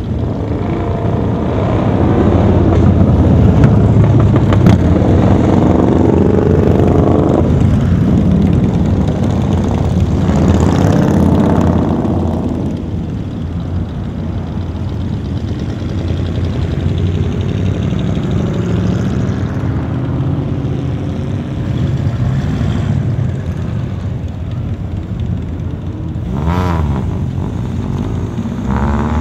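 Engines of classic cars running at low speed as they creep past in a slow line, a steady rumble that swells for several seconds early on and rises and falls in pitch around the middle. Near the end a touring motorcycle trike passes close by.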